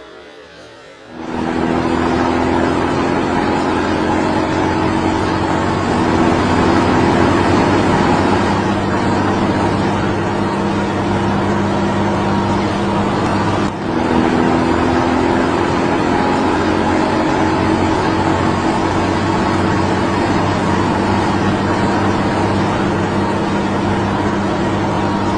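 A motor vehicle's engine running loud and steady at a constant pitch. It sets in about a second in, with a brief drop about halfway through.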